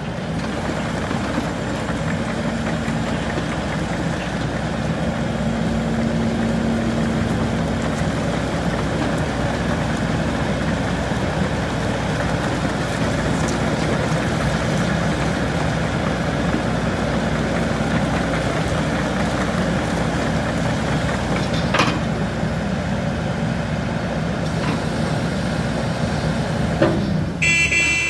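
Takeuchi TB290 mini excavator's diesel engine running steadily as the machine travels on its rubber tracks, with one sharp knock past the middle and a brief high-pitched tone near the end.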